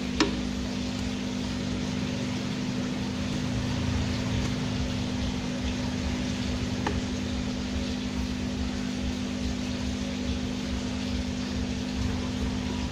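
Steady hum and hiss of a running machine, with a faint click just after the start and another about seven seconds in.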